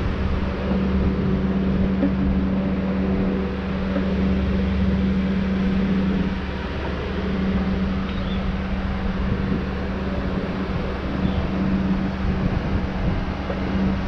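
Diesel engine of heavy logging equipment running steadily, with a low rumble and a strong hum that eases briefly about halfway through.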